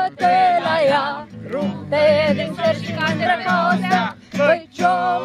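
A voice singing a song over a strummed acoustic guitar, the sung notes wavering as they are held.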